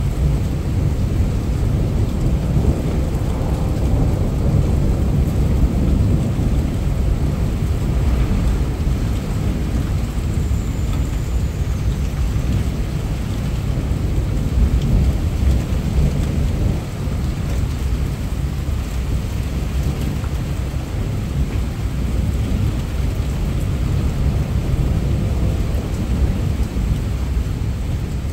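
Heavy rain falling steadily in a thunderstorm, over a continuous low rumble of thunder.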